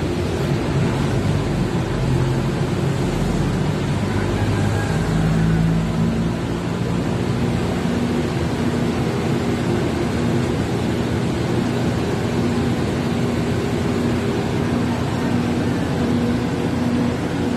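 Steady loud drone of running power-plant generator sets, with a low mechanical hum and a steady tone that holds through.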